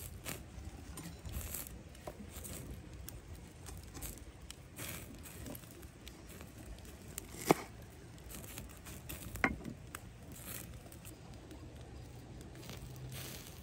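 Pine needles and twine rustling as a bundle of pine sprigs is tied onto a stick, then two sharp knocks, about two seconds apart, of a knife chopping through the bundle onto a wooden board.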